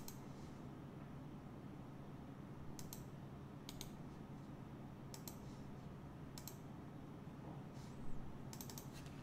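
Faint, scattered clicks of a computer mouse and keyboard, a handful spread out with a quick cluster near the end, over a steady low hum.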